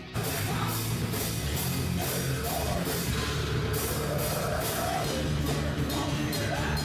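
An acoustic metal band playing full-out: steel-string acoustic guitar, electric bass guitar and a drum kit with regular cymbal crashes and heavy low end. The music cuts in suddenly at full volume.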